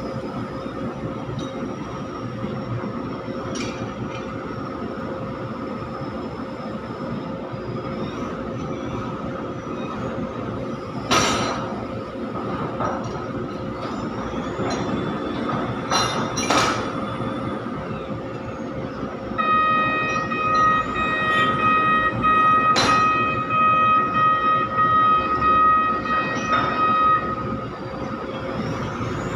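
A container-handling reach stacker's diesel engine runs steadily, with a few sharp metal clanks as its spreader comes off the container on the truck. For about eight seconds in the second half, a loud steady high tone with overtones sounds over the engine.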